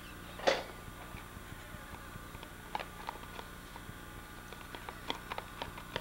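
A cardboard instant-film box handled on a wooden table. It knocks or scrapes sharply once about half a second in, then gives scattered light clicks and taps near the middle and end.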